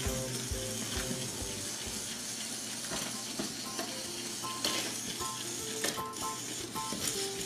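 Background music, a light melody of short steady notes, over a constant hiss.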